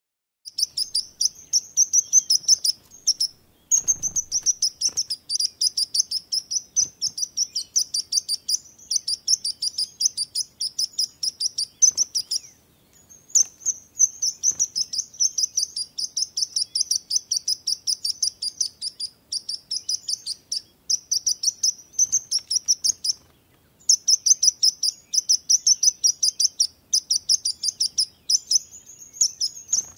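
A sparrow singing: long runs of rapid, high chirps, about ten a second, broken by a few short pauses.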